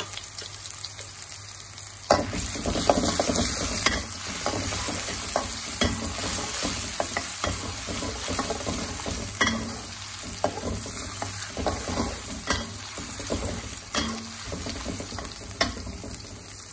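Garlic, ginger and bird's-eye chillies sizzling in hot oil in a wok, being fried until slightly crisp. From about two seconds in, a metal spatula scrapes and taps against the wok as they are stirred.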